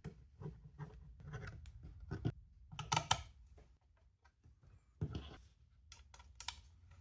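Small screws being driven by hand into an SSD to fix it in a PC case: quiet, irregular clicks and scrapes of metal on metal, with louder clusters about three seconds and five seconds in.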